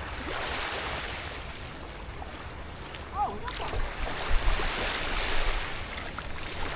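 Shallow water splashing and sloshing, louder and choppier in the second half, with wind rumbling on the microphone.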